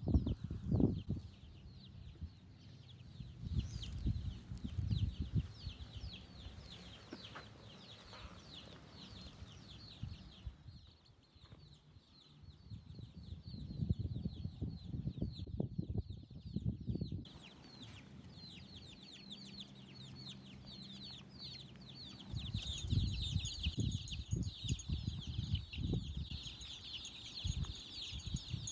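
Chicks peeping continually: a rapid run of short, high, falling peeps that pauses briefly a little past the middle and is loudest near the end, over uneven low rumbling and bumping noise.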